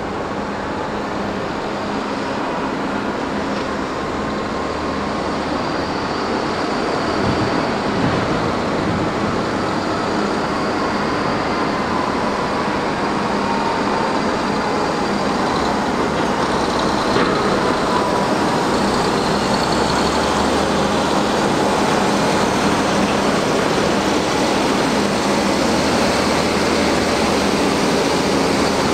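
Several Liebherr articulated dump trucks driving over rough ground, their engines running steadily and growing slowly louder as they approach. A faint whine slowly falls in pitch through the middle.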